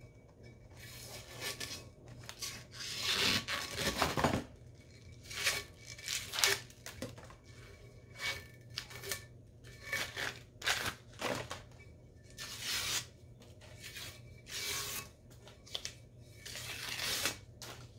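Shrink-wrap sleeve and sublimation paper being torn and peeled off a hot stainless steel skinny tumbler by gloved hands: a run of irregular rips, crinkles and rubs.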